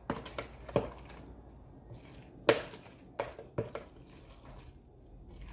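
A spoon stirring a wet crab-meat and cracker mixture in a plastic tub: soft squishing broken by several sharp knocks of the spoon against the plastic, the loudest about two and a half seconds in.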